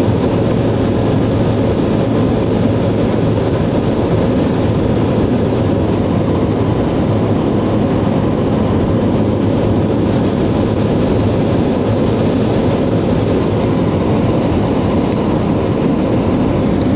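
Steady road noise of a vehicle driving at highway speed, heard from inside the cabin: a constant low rumble and hiss of tyres and wind, with no change through the stretch.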